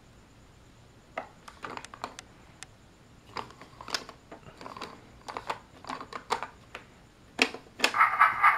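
Hard plastic toy pieces clicking and knocking as a toy car is handled and set onto a plastic train-shed playset. Near the end come two sharp knocks, then a loud electronic sound effect from the playset starts, a rapid even pulsing.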